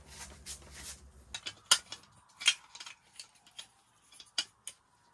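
Sharp metal clicks and light clatter of a small canister camp stove being handled and screwed onto its gas canister, the loudest click a little under two seconds in. A faint low hum comes before it.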